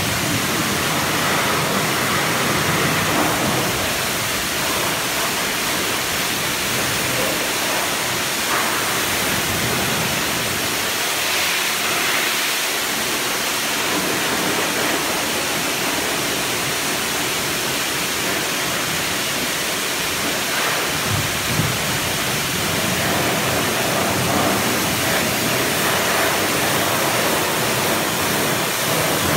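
High-pressure spray wand of a self-service car wash blasting water onto a foamed car's bodywork: a steady hissing rush that swells and eases a little as the jet moves over the car.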